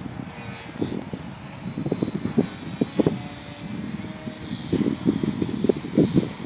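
Faint, high-pitched motor whine of a profile Extra 300 RC model plane, gliding up and down in pitch as it manoeuvres. Loud, irregular gusts of wind buffet the microphone throughout.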